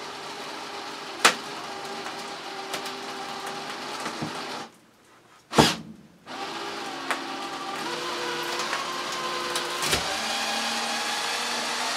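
Cordless drill running in long steady spells while backing screws out of a wooden floor, with a couple of sharp clicks. It stops for about a second and a half midway, then runs again.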